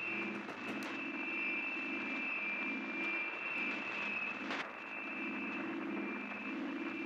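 Electronic interference from a television breaking up: a steady high whine over a low buzzing hum that pulses in and out, with hiss and a few faint crackles.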